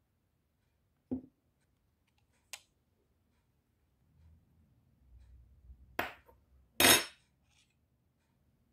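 A metal spoon and small dishes clinking and knocking against a glass mixing bowl while oil and paprika are added: a few separate clinks, the two loudest close together near the end.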